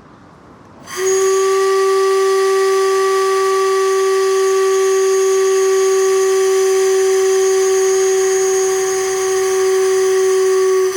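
Restored Victorian mill shift whistle, the 'Bummer', blowing on compressed air from a compressor instead of steam: one long steady blast with an airy hiss, starting about a second in and cutting off sharply at the end.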